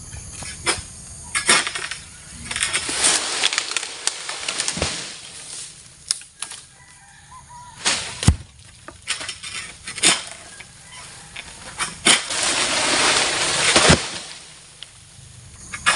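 Oil palm being harvested with a long-pole sickle (egrek). There are sharp cracks and knocks as the blade cuts through frond and bunch stalks, and long rustling swishes of cut fronds sliding down through the leaves, the loudest one near the end.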